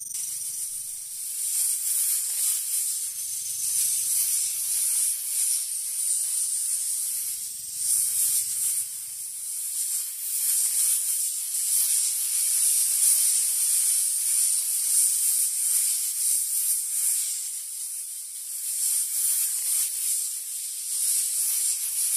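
A steady high-pitched hiss that swells and fades every second or two.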